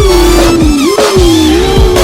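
Electronic dance music with heavy sustained bass notes, drum hits and a wavering synth line.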